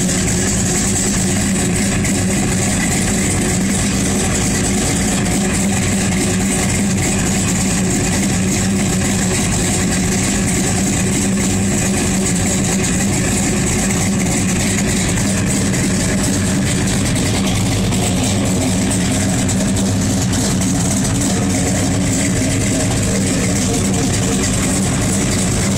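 1984 Chevrolet Monte Carlo SS's V8 idling steadily through its exhaust.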